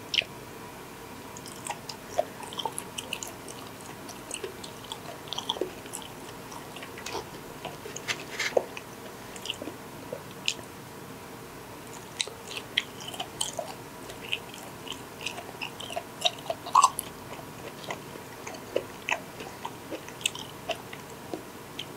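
Chewing and biting raw shark sashimi: many short, irregular mouth clicks and smacks.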